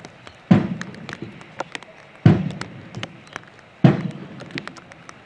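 Three evenly spaced bass drum beats, about one every second and three-quarters, each ringing on briefly: a parade band's bass drum beating time on an open parade ground.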